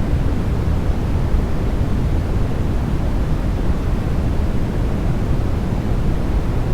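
Steady white-noise sleep track: an even, deep hiss weighted toward the low end, with no change.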